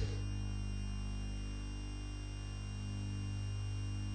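Steady low electrical hum from a sound system, with faint background music under it.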